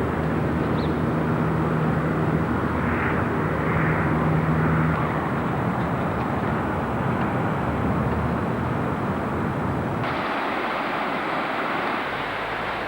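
A steady engine drone with a low, even hum, which cuts off abruptly about ten seconds in, leaving an even rushing noise.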